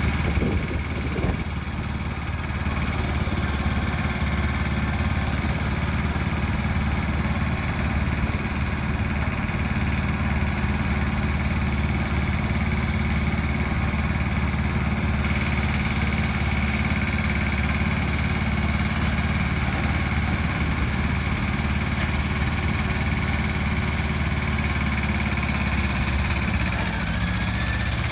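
Mitsubishi S-630D compact tractor's two-cylinder diesel engine running steadily while the tractor is driven.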